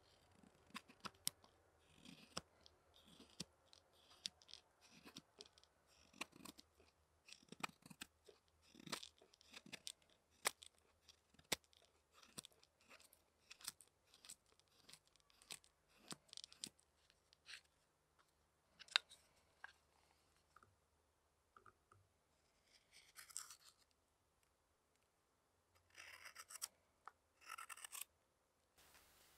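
Hook knife slicing into the bowl of a wooden spoon: a run of short, crisp cuts, about one or two a second. Later the cuts thin out, with a few longer scraping strokes near the end.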